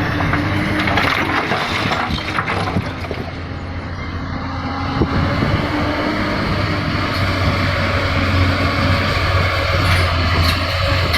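Hyundai hydraulic excavator's diesel engine running steadily under load, with crunching and clattering of rock and soil as the bucket digs or dumps, heaviest in the first few seconds, and a few sharp cracks near the end.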